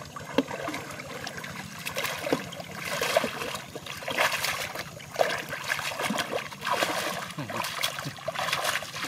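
Shallow muddy water splashing and sloshing as hands grope through it along the bottom, in repeated surges about once a second.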